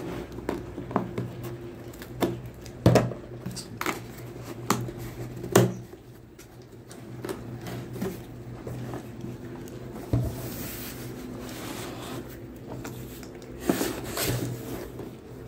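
Scissors snipping through packing tape on a cardboard box, a run of irregular sharp clicks and knocks, followed by cardboard scraping and knocking as the box is pried open near the end.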